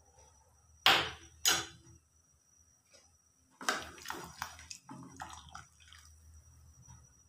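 A wooden spatula stirring soup in a metal pressure cooker pot: two sharp knocks about a second in, then a couple of seconds of sloshing and scraping against the pot.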